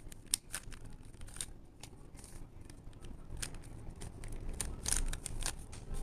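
Plastic puzzle cube being turned by hand during a solve: an irregular run of quick clicks and clacks as its layers snap round.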